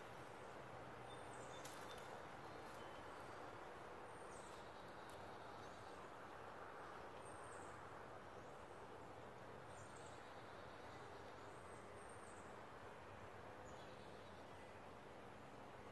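Quiet outdoor background with a faint, high chirp repeated about once a second, and a few light clicks about two seconds in.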